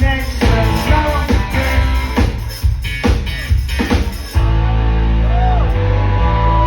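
Live rock band playing with distorted guitars and drums. About four seconds in, the drum hits stop and a held chord rings on with sliding pitched notes over it.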